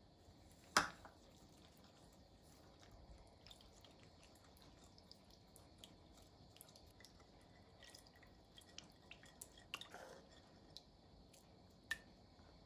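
A small ceramic cup and a silicone spatula knocking and tapping against a glass mixing bowl as ingredients are poured and stirred in, with soft squishing of mayonnaise. One sharp knock about a second in, then scattered light clicks and taps, busier near the end.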